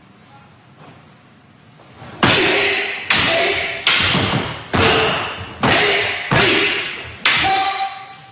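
Wooden staff (bo) and wooden sword clashing in a bojutsu kata: seven sharp wooden strikes, about one every second, starting about two seconds in, each ringing out briefly in the hall.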